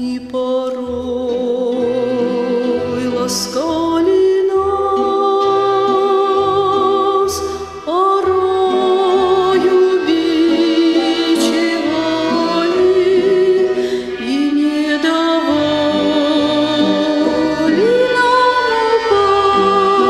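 Background music: a singing voice holding long notes with vibrato over a low, slowly stepping accompaniment.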